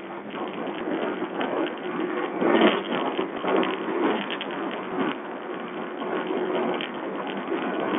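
Sherco 125 four-stroke enduro motorcycle being ridden over a rough dirt track: the engine runs under a steady clatter of rattles and knocks. The sound is thin and harsh, picked up by a low-quality watch camera's microphone.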